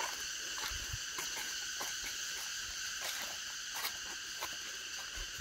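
Steady chorus of forest insects, several high buzzing pitches held unbroken, with scattered faint clicks and a few soft low thumps.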